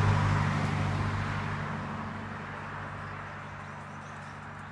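A road vehicle's engine hum, loudest at first and fading steadily away over a few seconds.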